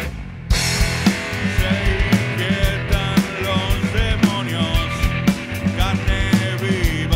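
Rock band playing: drums, bass and electric guitar, with a man singing. The band drops out for a moment at the start and comes back in full about half a second in.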